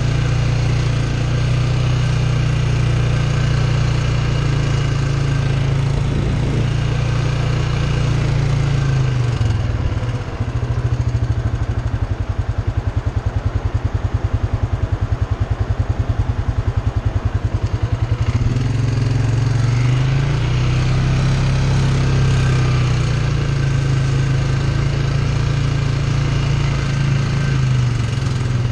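ATV engine running as it is ridden, dropping to a low, evenly pulsing idle for several seconds about a third of the way in, then picking up again.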